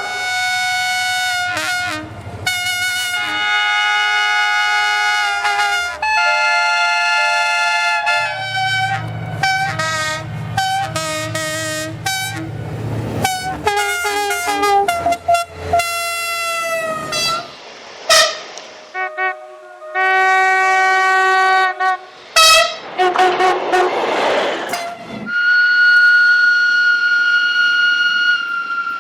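A run of train air-horn blasts from different trains, cut one after another: long chord blasts, strings of short toots, and a blast whose pitch falls as the train passes. A low engine rumble sits under the short toots in the first half, and the rush of a passing train comes about two-thirds through.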